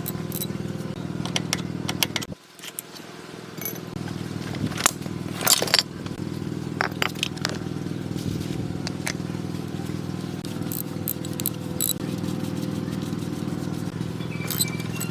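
A motor running steadily, with scattered metallic clicks and rattles over it. It cuts out about two seconds in and builds back up over the next couple of seconds.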